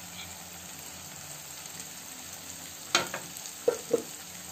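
Mashed green banana peel paste frying in oil in a kadai, a steady sizzle. About three seconds in come a few short, sharp clicks and knocks.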